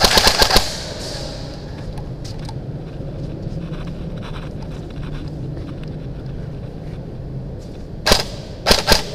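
Airsoft rifles firing: a rapid burst of sharp shots at the start, then single shots and another quick burst from about eight seconds in, echoing off the concrete of a parking garage.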